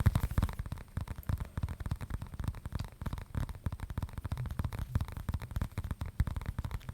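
Fingers tapping and scratching rapidly on an object held close to the microphone: quick, dense taps with a heavy low thud to them.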